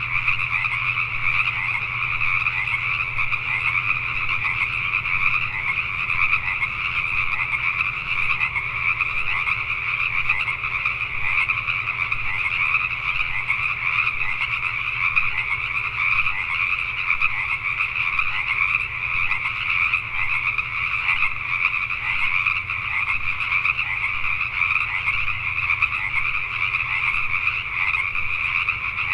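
A dense chorus of Pacific tree frogs (Pacific chorus frogs) calling, many voices overlapping into a continuous, unbroken sound.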